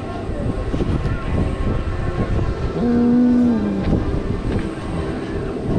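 Amusement ride running: a steady rumble and rattling with scattered clicks. About three seconds in, a held tone sounds for about a second and dips in pitch as it ends.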